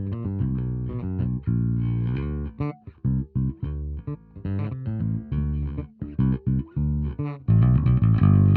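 Electric bass guitar with split-coil P-bass pickups, played through an Ampeg SVT amp simulation: a line of separate plucked notes, several of them short and clipped in the middle, ending on louder held notes.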